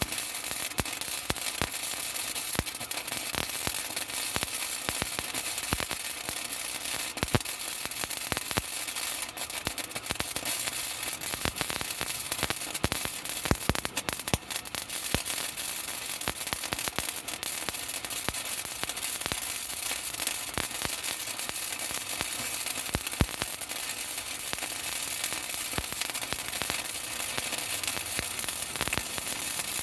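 Wire-feed (MIG) welder arc crackling steadily, a dense sizzle of fine pops like frying, as weld beads are laid on steel.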